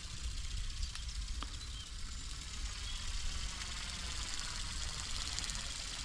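Steady whir of a remote-controlled flapping-wing bird's small electric motor and wings in flight, over a low wind rumble on the microphone.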